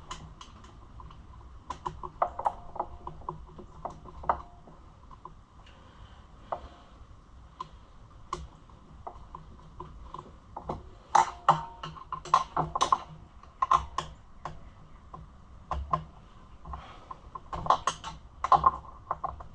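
Small metal tool clicks and taps as a Phillips screwdriver works the screws on a dirt bike's carburetor, busiest in two runs of quick clicks in the second half.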